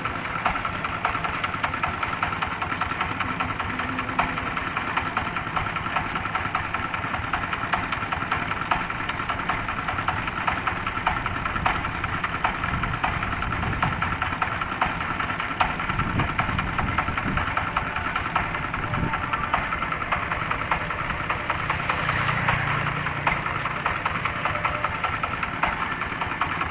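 Diesel engine of a rice threshing machine running steadily, with a dense, rapid rattle over a steady high hum.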